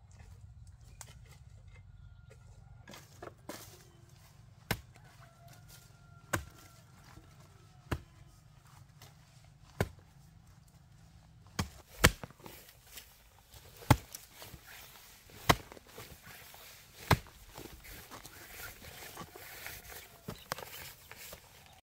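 A hand tool striking over and over, about one sharp blow every one and a half seconds, with the hardest blows in the middle stretch.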